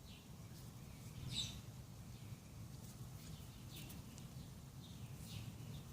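A few faint, short bird chirps spaced a second or so apart, the clearest about a second and a half in, over a low steady background hum.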